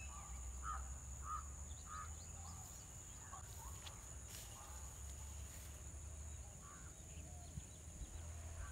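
Birds calling: three short calls about two-thirds of a second apart near the start, then a few fainter scattered calls, over a steady high-pitched tone.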